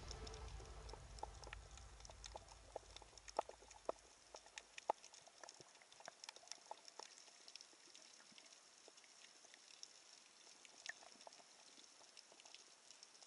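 Faint underwater ambience: scattered sharp clicks and crackles over a soft hiss, with a low rumble fading away over the first few seconds.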